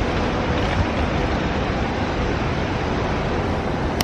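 Wind buffeting the microphone: a steady rushing noise with a flickering low rumble, ending in a sharp click.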